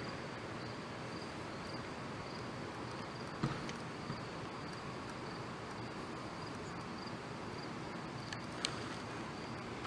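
Crickets chirping in a steady, even pulse, about three chirps a second, over a low hiss of night air. A couple of short clicks stand out, one about three and a half seconds in and one near the end.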